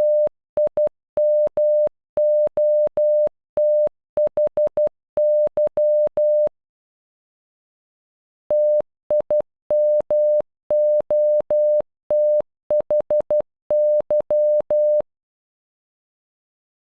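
Morse code beeps, one steady mid-pitched tone keyed in dots and dashes, spelling TIMOTHY (- .. -- --- - .... -.--). The word is sent twice, with a pause of about two seconds between the two runs.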